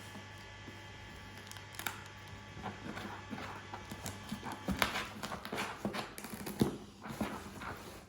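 A cat scratching and pawing at a parcel's packaging: irregular scratches and taps, busiest in the second half, over a steady electrical hum.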